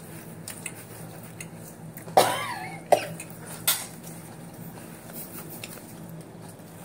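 A woman coughs once, a short hoarse burst about two seconds in, from the burn of a very hot chilli. It is followed by a sharp click and, about a second later, a quick hissing breath.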